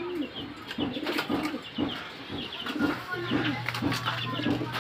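Pigeons cooing over and over in low coos that rise and fall, with sharp crunching clicks of someone chewing raw okra.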